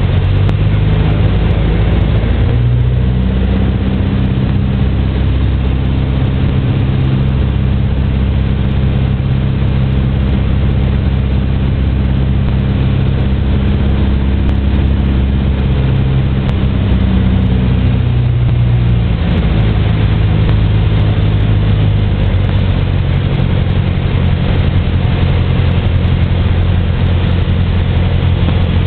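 Piper PA-28's single piston engine and propeller droning steadily, heard inside the cabin on a landing approach. The engine note changes about two seconds in and changes back about two-thirds of the way through, as power is adjusted on the approach.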